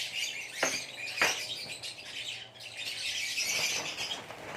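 A flock of lovebirds chattering and chirping continuously, with two short, sharp squawk-like sounds about half a second apart just after the start.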